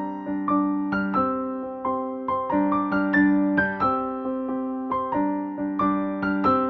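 Background music: an electric piano playing a gentle melody, its notes struck about two to three a second, each fading away.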